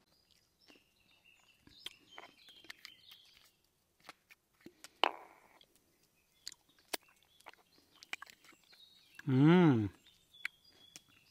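A man's short hummed "mmm", rising and falling, about two seconds before the end and the loudest sound. Before it, faint high bird chirps with a few light clicks and a brief rustle.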